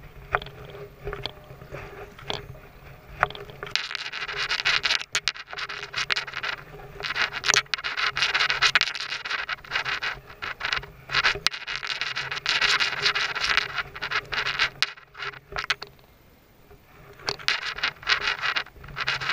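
Scattered clicks and knocks, then long stretches of rough scraping and rubbing from about four seconds in, with a short quiet gap near the end before the scraping returns.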